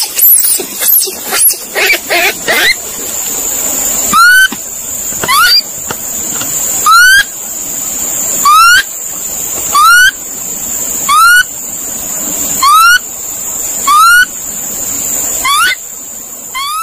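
Monkey calls: a burst of shrill, pitch-bending squealing chatter, then a series of short rising whistled calls repeated about every second and a half, over a steady high-pitched hiss.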